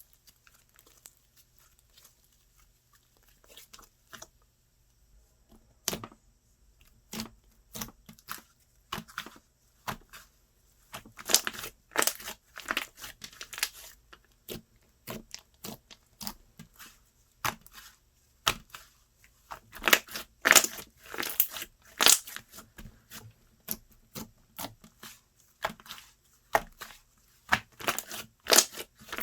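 Slime being worked by hand, stretched and pressed, making irregular sharp clicks and pops. They are sparse for the first several seconds and then come thick and fast.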